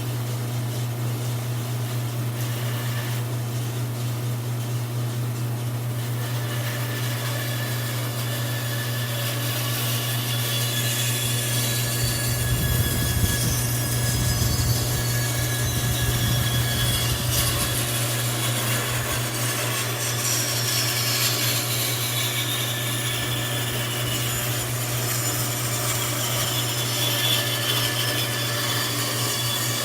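Bandsaw running with a steady low hum while its blade cuts through a wooden spoon blank, the cutting a little louder from about ten seconds in.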